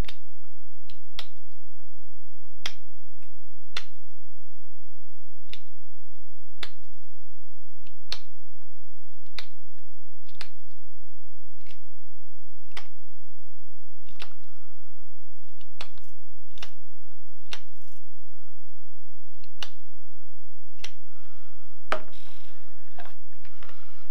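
Knife blade carving a piece of fatwood: short, sharp cutting strokes at about one a second as a chamfer is shaved onto the end of the toggle. A steady low hum runs underneath.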